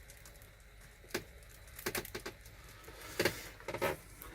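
A few light, sharp clicks and knocks at irregular moments over a faint steady low hum.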